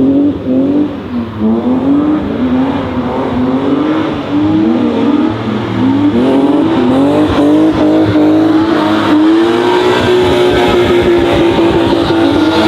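A car engine running hard, its revs climbing and dropping back again and again, then holding steady at high revs for the last few seconds.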